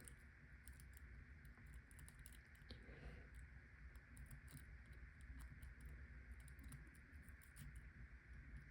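Near silence, with faint scattered clicks and scratches of a steel hook pick and tension wrench working the pins inside a padlock.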